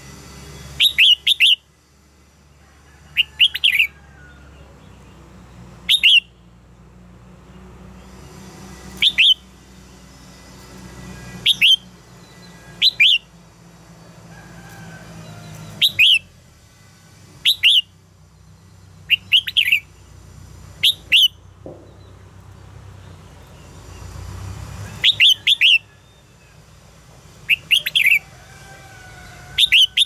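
Red-whiskered bulbul singing: short, loud phrases of a few quick sweeping whistled notes, repeated every couple of seconds, with a pause of about four seconds about two-thirds of the way through.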